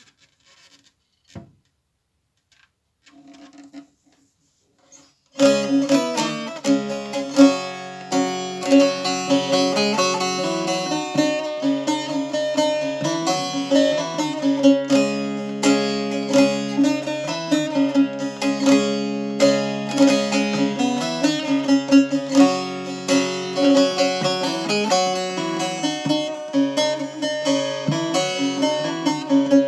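Short-neck bağlama with a carved mulberry bowl played solo: a fast plucked melody over steady ringing lower notes, starting about five seconds in after a soft knock.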